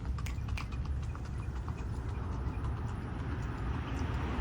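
Paso Fino mare's hoofbeats, a quick clip-clop of shod hooves on hard ground, clearest in the first second and fainter after, over a steady low rumble.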